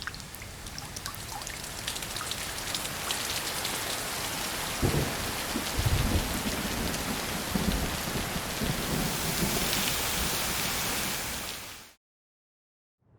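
Heavy rain pouring hard and swelling slowly, with deep low rumbles of thunder through the middle. It cuts off abruptly about a second before the end.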